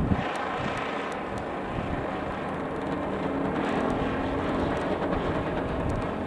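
Strong wind blowing over the microphone as a steady rushing noise, with a faint low drone running through it.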